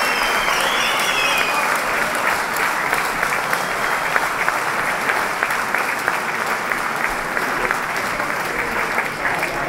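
Crowd applauding steadily, a dense patter of many hands clapping with voices under it, and a shrill whistle gliding in pitch in the first second or so.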